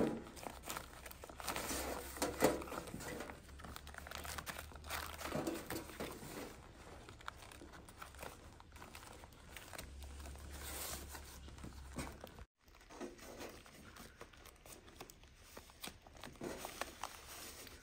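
Crinkling and rustling of wrapping being handled and folded by hand as sticky rice is wrapped into packets, in a run of irregular rustles. The sound drops out briefly about two-thirds of the way through.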